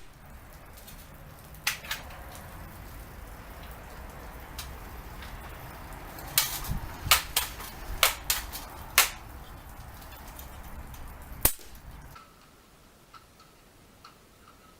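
Sharp cracks and clicks from an air rifle session: two about 2 s in, a quick run of six or seven between about 6 and 9 s, and one more about 11.5 s in, over a steady low background noise that stops about 12 s in.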